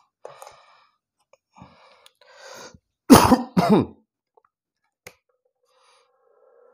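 A man coughs twice in quick succession, about three seconds in, the two coughs much the loudest sound here. A single sharp click follows about a second later.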